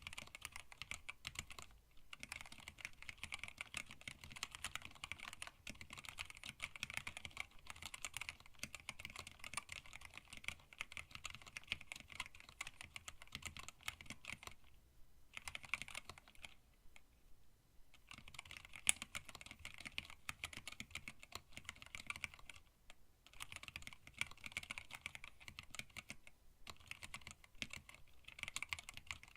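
Fast, continuous typing on a hand-wired split mechanical keyboard with Tealios linear switches, an acrylic case and PBT keycaps: dense clacking keystrokes, broken by a few short pauses, the longest from about 15 to 18 seconds in.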